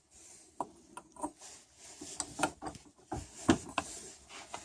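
An aluminium test piece being handled and set in a metal bench vise: irregular clanks, clicks and scraping of metal on metal, with a couple of louder knocks past the middle.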